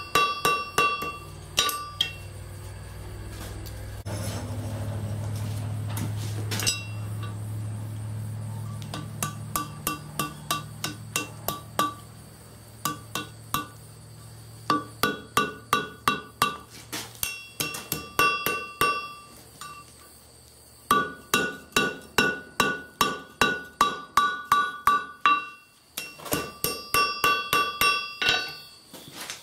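Hand hammer striking red-hot steel on an anvil in runs of blows, about two to three a second, each blow leaving a bright ringing anvil tone, with short pauses between the runs; the steel is a file being forged into a flint-and-steel striker, worked on the anvil face and the horn. A low steady hum underlies the first dozen seconds and fades out.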